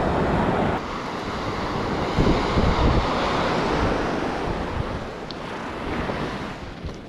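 Surf washing on a beach, with wind buffeting the microphone in low gusts; the wash swells and then eases off toward the end.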